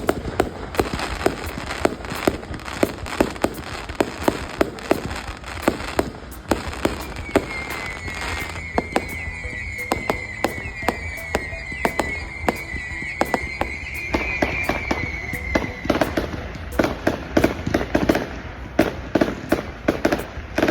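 Fireworks popping and crackling in quick succession, with a wavering whistle from about seven seconds in until about sixteen seconds.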